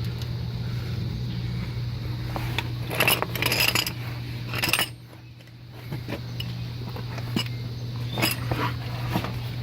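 Scattered metallic clinks and rattles from hands and tools working at the wheel hub's ABS sensor wiring, in a cluster about three seconds in and again near the end, over a steady low hum.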